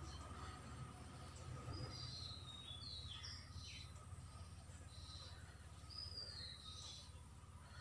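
Faint bird chirps: a series of short, high calls, several sliding down in pitch, over a steady low hum.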